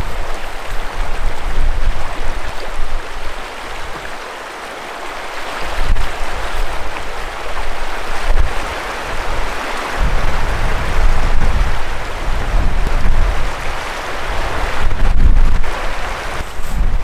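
Fast river rapids rushing steadily, with gusts of wind buffeting the microphone in low rumbles every few seconds.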